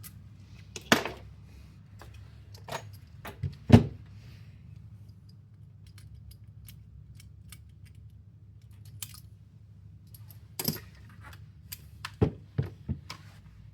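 Scattered small clicks and knocks of an opened airsoft AEG gearbox's parts and tools being handled during stripping. The loudest knock comes about four seconds in, and a cluster of clicks follows near the end.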